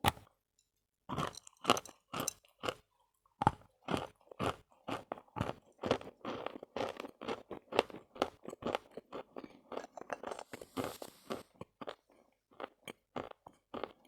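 Dry chalk being bitten and chewed close to the microphone: a steady run of crisp crunches, about two to three a second, with a brief hiss about ten and a half seconds in.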